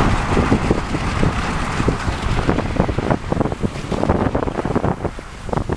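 Wind buffeting the microphone on a moving dog sled, with the sled's runners scraping over packed snow and irregular knocks and rattles as it bumps along.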